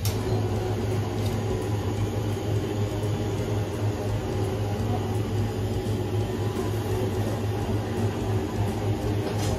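Steady low machine hum that does not change, with a few faint clicks.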